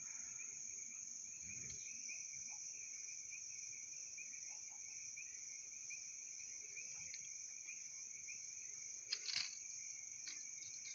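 A steady chorus of crickets trilling in two high-pitched bands, with a couple of faint knocks near the end.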